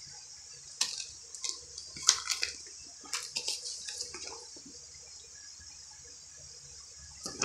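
Hands handling a plastic Blu-ray case and pulling out and unfolding its paper insert: bursts of crinkling paper and plastic clicks around the first and fourth seconds and again near the end, over a steady hiss.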